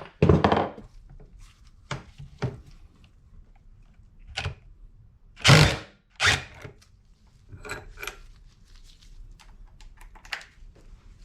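Socket wrench and steel steering-coupler parts clanking and knocking while the 13mm bolts are worked loose: a series of separate knocks, irregularly spaced, the loudest about halfway through.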